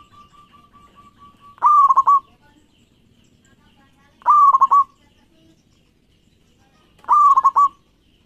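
Zebra dove (perkutut) cooing: three short phrases of quick staccato coos, one about every two and a half seconds.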